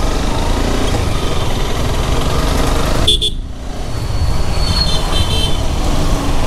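Honda CBR motorcycle being ridden through town traffic: a steady rumble of engine and wind on the microphone. About three seconds in the noise briefly drops, and a vehicle horn toots for about a second near five seconds in.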